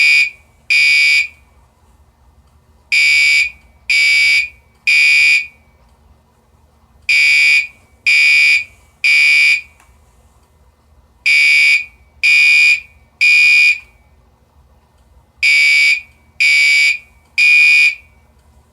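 Fire alarm under test, sounding in the temporal-three evacuation pattern: three loud, high-pitched beeps about a second apart, then a pause of about two seconds, repeating. Two beeps close one group at the start, followed by four full groups of three.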